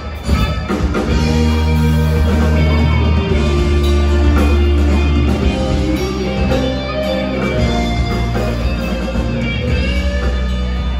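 A school rock band playing live through a PA: electric guitars and a heavy bass line over drums and keyboard.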